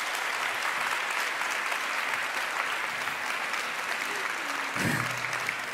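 A large audience applauding steadily at the end of a talk, the clapping holding an even level, with a few words from a voice near the end.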